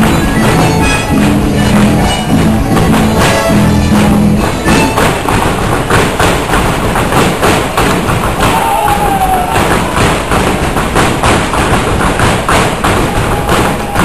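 Gaucho folk music for the Chula with dancers' boots stamping and tapping out rapid sapateio footwork on the stage floor. The stamping thickens into a fast, dense rattle from about four seconds in.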